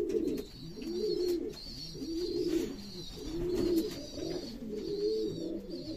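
Homing pigeons cooing in their loft: a run of low, rising-and-falling coos, roughly one a second.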